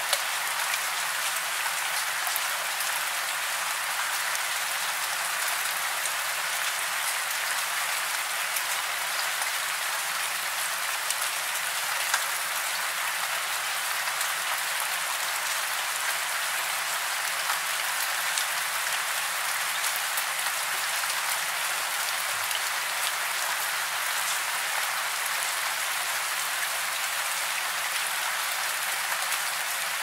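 Steady rain falling, an even hiss of many drops with now and then a slightly sharper tick.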